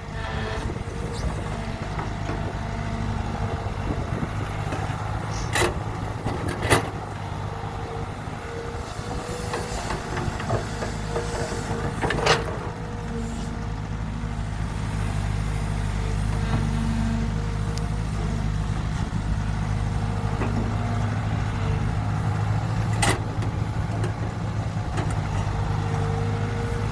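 Excavator's diesel engine running steadily under load while it digs sand, with a thin tone that comes and goes and four sharp metallic clanks spread through.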